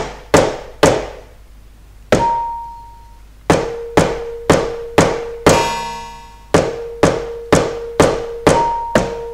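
Mallets striking the pads of a Pearl Malletstation EM1 electronic mallet controller firmly, about two strikes a second with a short pause near the start: hard-strike calibration during bar regulation. Short electronic tones from the editor software sound between and under the strikes, including a buzzy tone about halfway through.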